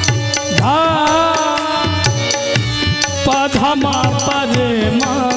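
A man singing a slow, melodic Hindi song into a microphone, his voice held and bending on long notes, over a steady drum accompaniment.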